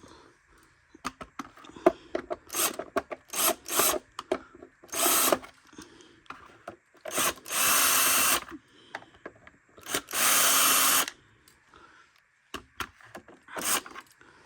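Cordless drill/driver backing out the motor-cover screws of an upright vacuum in short bursts, three of them about a second long, with clicks and rattles of handling between them.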